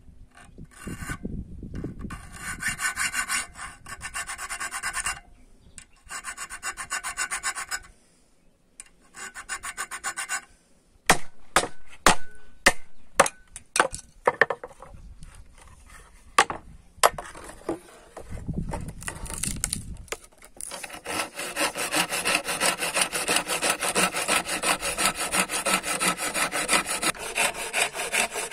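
A steel hand file rasps along a 5160 spring-steel knife blade held in a vise, in three runs of strokes. Then comes a run of sharp knocks. From about two-thirds of the way in, a hand saw cuts through a wooden board with fast, even strokes.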